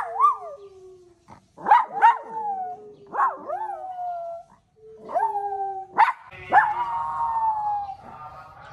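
Two small poodle-type dogs howling together: a string of short howls that swoop up and fall away, over longer, lower drawn-out notes that slowly sag in pitch.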